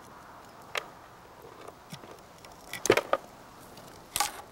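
A metal blade scraping and knocking dried resin off rough tree bark into a container, in a few separate short strokes, the loudest cluster about three seconds in.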